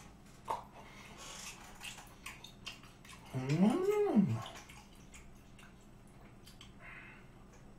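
A man chewing a mouthful of raw beef, with small clicks of mouth and chopsticks. About three seconds in he gives a closed-mouth 'mmm' hum that rises and then falls in pitch over about a second.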